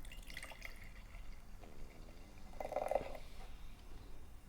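Soda being poured into a cup, faint, with a louder stretch just under three seconds in.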